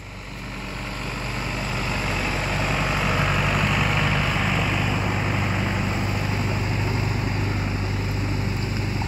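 Farm tractor's diesel engine running as it drives past, a steady low hum that grows louder over the first few seconds and then holds.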